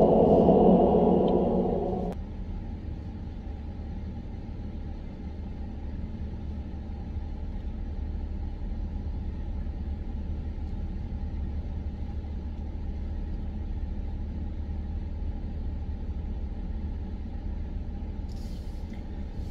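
Car engine and road rumble heard from inside the cabin while driving slowly: a steady low rumble. A louder noise over it cuts off abruptly about two seconds in.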